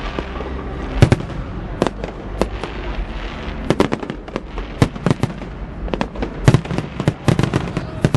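Fireworks going off: a string of sharp, irregularly spaced bangs and cracks, loudest about a second in and again about six and a half seconds in.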